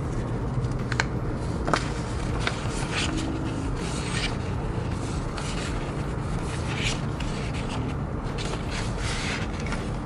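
Paper sheets and plastic sticker packets rustling and rubbing as they are handled and shuffled, with frequent short crinkles, over a steady low background hum.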